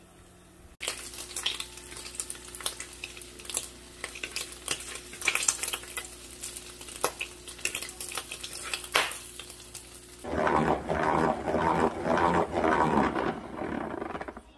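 Bacon sizzling and crackling in a frying pan, with clicks from the tongs laying the slices in. About ten seconds in, a salad spinner starts whirring as it spins washed lettuce.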